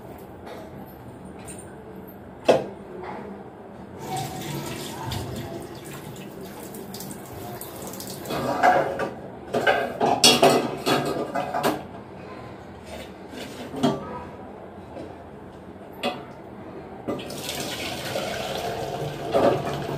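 Aluminium cooking pots clanking and knocking as they are handled on a gas stove, with water running; the knocks come in a busy cluster about halfway through.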